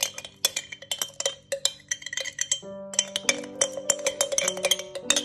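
Metal spoon clinking against the inside of a glass mason jar in quick, uneven strokes, stirring matcha powder and sweetener into a little hot water until it dissolves.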